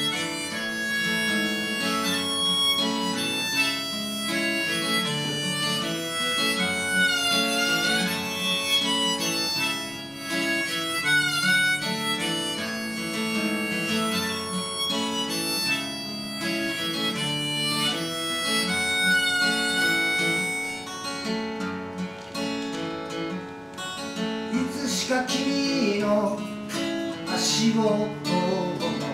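Harmonica on a neck rack played over a strummed acoustic guitar. About two-thirds of the way through the harmonica stops and the guitar carries on alone.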